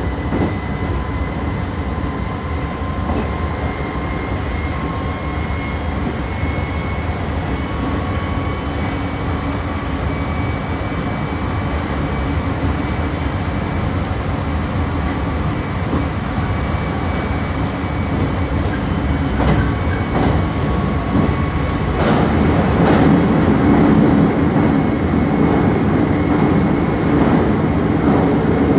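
Meitetsu 3150 series electric train running at speed, heard from inside the passenger car: a continuous wheel-and-track rumble with a faint steady whine. The rumble grows louder about two-thirds of the way through.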